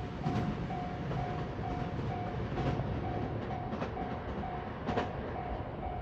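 Japanese level-crossing warning bell ringing, an even repeated ding a little under twice a second, over the rumble of a 521 series electric train running away down the line.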